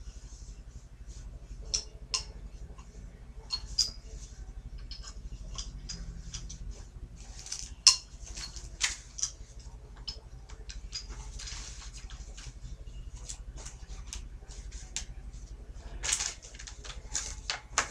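Small hard parts and packaging of a knife sharpener kit being handled and set down: scattered clicks and light knocks with short bursts of rustling, the sharpest knock about eight seconds in.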